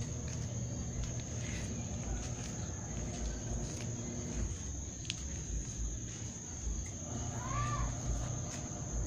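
Outdoor ambience: a steady, high-pitched insect drone under a low rumble, with a short bird call about seven and a half seconds in.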